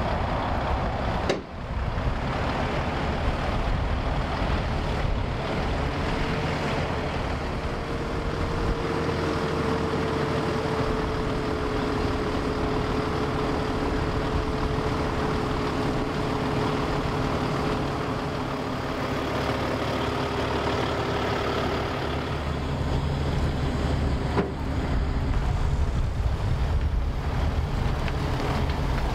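Heavy Volvo FH semi-truck's diesel engine running as the rig pulls out slowly and turns, with a steady whine from about six seconds in until about twenty-two seconds. A short sharp knock about a second in.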